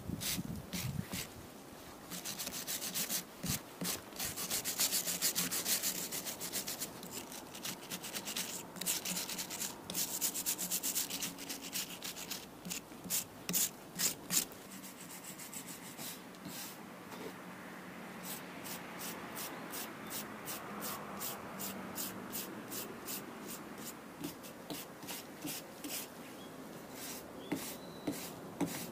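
Wire brush scrubbing moss off a concrete block wall in rapid, rasping back-and-forth strokes that come in runs, fainter for a stretch midway. The concrete under the moss has weathered soft, like soil.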